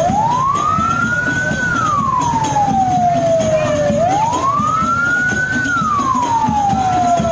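An electronic siren wailing. Its tone rises quickly, then slides slowly back down, once about every four seconds, over a steady low rumble.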